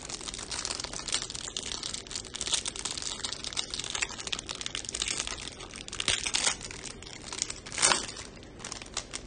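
Clear plastic wrap around a stack of trading cards crinkling and tearing as it is pulled off by hand, with one louder crackle near the end.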